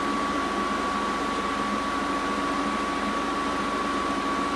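Steady hum and hiss of a running fan, with faint constant tones.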